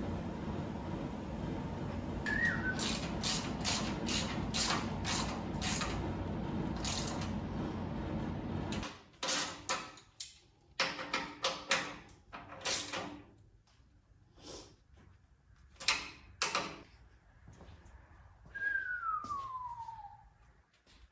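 Knocks and clanks of hand work in a garage, over a steady noise that cuts off suddenly about nine seconds in; after that come scattered sharp knocks, and near the end one short falling whistle.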